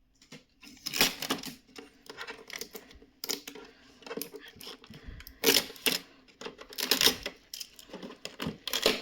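Packaging being handled during unboxing: irregular crackling of plastic wrap and rustling with clicks and knocks of plastic parts, loudest about a second in and again around five and a half and seven seconds.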